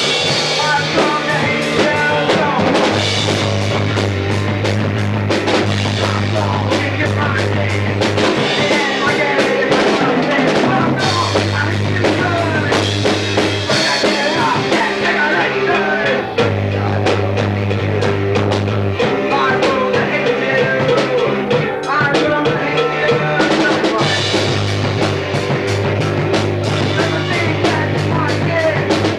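A rock band playing live in a garage: drum kit, bass guitar and electric guitar, with a male singer singing into a microphone. The bass holds long notes that change every couple of seconds under a steady drum beat.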